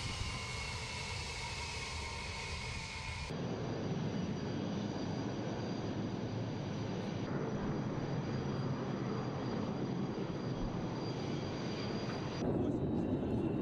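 Ilyushin Il-76 transport's turbofan jet engines running as it rolls on a dirt strip: a loud rush with a whine that slowly falls in pitch. A few seconds in the sound cuts abruptly to a deeper, steady jet rumble with a high whine, and near the end it cuts again to a louder rush.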